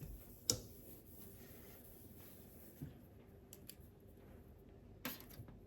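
A few sharp clicks and taps in a quiet room: one distinct click about half a second in, then fainter taps spread through the rest.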